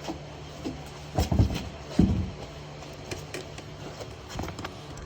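Two dull thumps, about a second and two seconds in, with a few light clicks and knocks of things being handled, over a steady low hum.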